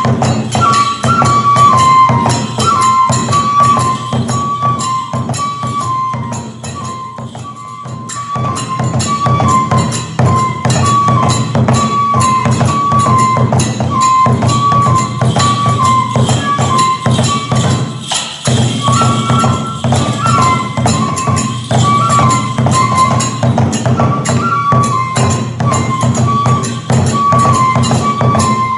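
Kagura music: a bamboo flute playing a short repeating melody over a driving beat of drum and small hand cymbals, easing off briefly and with a short break about two-thirds of the way through.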